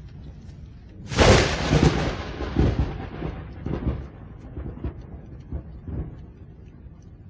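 A close thunderclap: a sudden sharp crack about a second in, followed by rolling rumbles that fade over several seconds.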